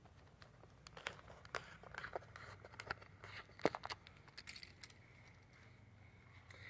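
Faint scattered rustles and clicks from someone moving about and handling things. A faint steady high tone comes in for the last couple of seconds.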